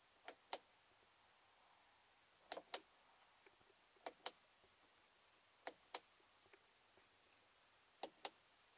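Small inline push-button switch on a 12-volt LED light strip's power cord being clicked, a sharp double click about every one and a half to two seconds, five times, switching the lights off and on.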